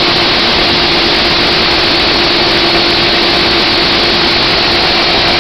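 Vintage snowmobile's fan-cooled engine running steadily with an open hood, a loud even drone with a constant hum and fan rush.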